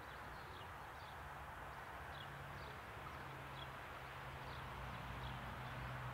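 Small birds chirping in short falling notes, over a low steady hum that comes in about a second in and slowly grows louder.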